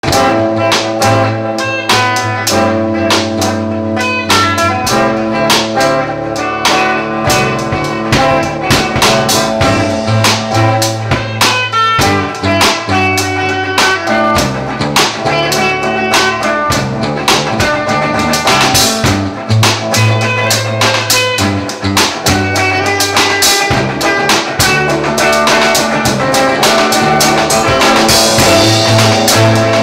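Three musicians jamming live: a drum kit keeping a steady beat with guitar over low sustained notes that change every few seconds.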